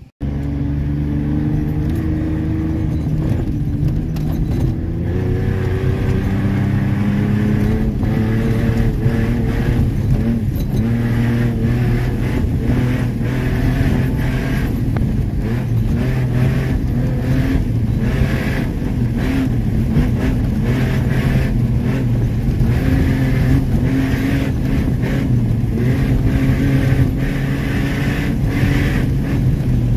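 Ford Ranger pickup's engine heard from inside the cab while driving on a dirt road. Its pitch climbs over the first few seconds as it accelerates, then rises and falls, with road noise and frequent short knocks and rattles over the bumps.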